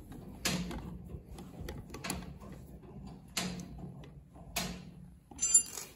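Socket ratchet with an extension working the nuts on a rear wheel hub of a 1950 International Harvester L-120 truck: four short clicking strokes about a second apart, then a sharp metallic clank with brief ringing near the end, the loudest sound.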